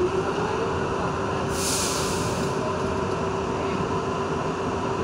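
R62 New York City subway car running through a tunnel into a station: a steady rumble of wheels on the track with a steady whine, and a brief hiss about a second and a half in.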